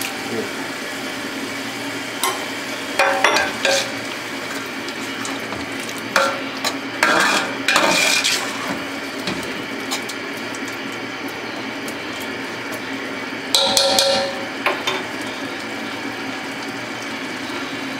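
A spoon stirring and scraping in a large aluminium pot of chicken curry masala, knocking against the pot in several short bouts, the longest about 7 to 8 seconds in, over a steady sizzle of the masala cooking on the flame.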